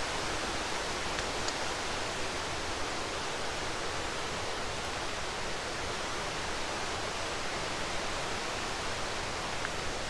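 Rushing water of the River Ogwen's cascades and small waterfalls pouring over rock: a steady, even rush of white water.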